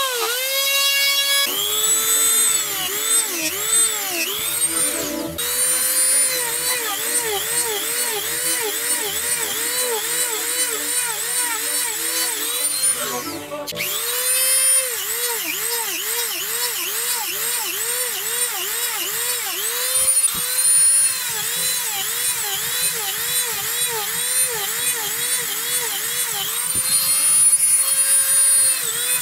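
Rotary tool with a concave eye cutter bit boring small round cups into wood: a motor whine that drops in pitch each time the cutter bites and rises again as it lifts, about twice a second. It stops briefly twice along the way.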